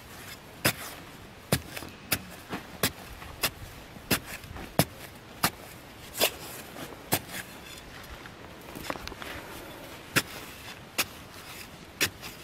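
A small hand digging tool chopping into hard, dry earth, a run of sharp strikes a little more than one a second, with loose soil crumbling between them.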